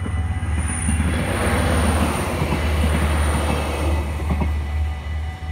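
Arriva LINT 41 diesel multiple unit passing over a level crossing: a heavy rumble and rush of engine and wheels that swells about a second in and eases off toward the end, with a couple of wheel clicks near the end. The crossing's warning bells ring steadily throughout.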